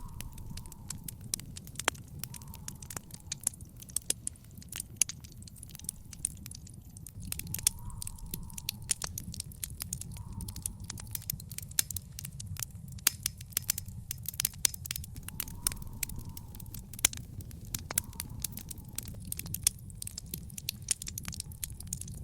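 Wood fire in a fire pit crackling, with frequent sharp pops and snaps over a steady low rumble.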